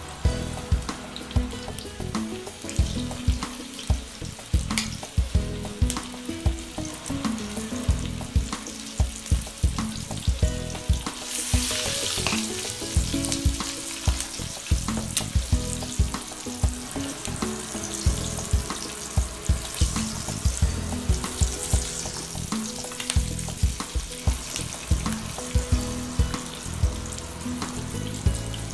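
Battered chicken drumsticks deep-frying in hot oil in a cast-iron skillet: a steady sizzle with frequent crackling pops. The hiss swells louder about eleven seconds in, as more drumsticks go into the oil.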